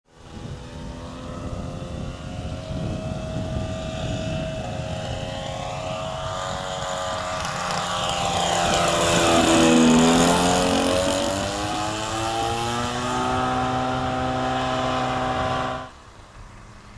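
Engine of a radio-controlled model Piper Cub running as the plane flies low past. The sound is loudest and its pitch dips as the plane passes close, about ten seconds in, and the level drops abruptly near the end.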